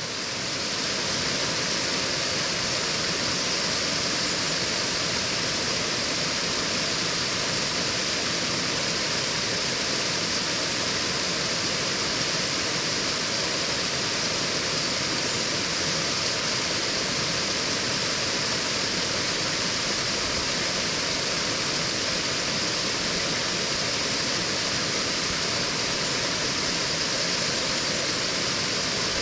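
Small waterfall: a brook spilling steadily over a low stone weir into a pool, a constant rushing and splashing of water.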